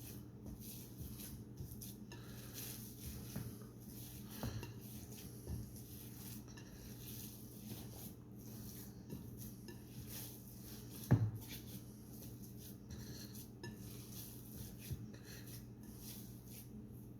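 Hands mixing ground venison and pork in a bowl: soft squishing and scattered light clicks of the bowl, with one sharper knock against it about eleven seconds in.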